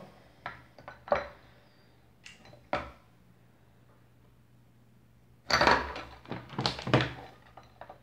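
Light clicks and knocks of wires and a lamp socket being handled and twisted together, with a louder cluster of rustling knocks about five and a half to seven seconds in.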